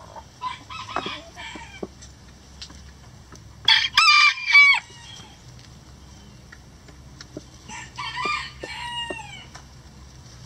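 A rooster crowing, loudest about four seconds in, with quieter chicken calls about half a second in and again around eight to nine seconds, the later ones falling in pitch.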